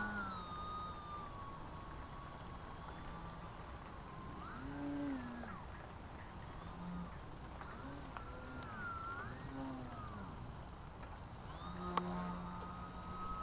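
Small electric RC plane's brushless outrunner motor and propeller (Sunnysky 1800kv, GWS 8x4.3) whining in flight, at some distance. Its pitch swoops up and down several times as the throttle changes and the plane passes.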